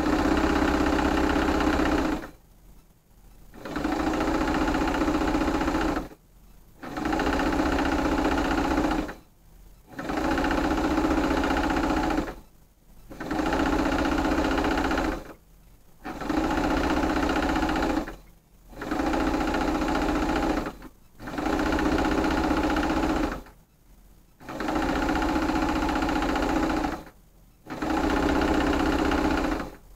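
Electric domestic sewing machine stitching a seam in about ten short runs of roughly two seconds each, stopping briefly between runs.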